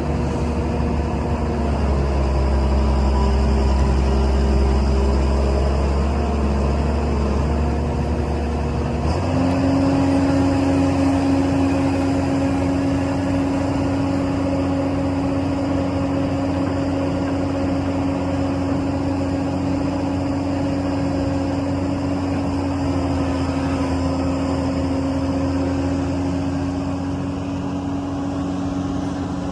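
Diesel engines of heavy construction machinery, excavator and dump truck, running steadily; about nine seconds in the engine note steps up in pitch and the deep low drone drops away.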